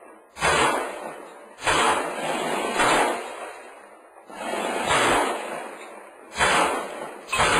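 Rifle fired in single shots, about six in all, roughly one every second or so, each shot echoing and dying away inside the room it is fired from.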